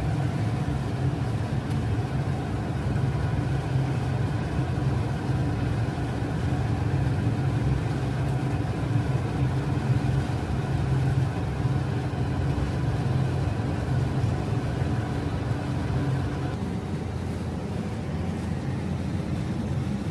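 A steady low motor hum with a few steady tones over it, running on without a break; some of the higher tones drop out about three-quarters of the way through.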